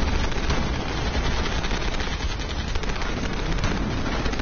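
Sustained machine-gun fire from a war-film battle soundtrack, the rapid shots running together into a steady din.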